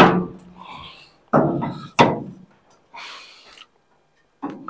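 Steel rear shock crossmember knocking against the car's body as it is pushed and worked into its slot by hand: about four sharp metallic thunks, the second and third half a second apart. It is a tight fit that won't stay seated.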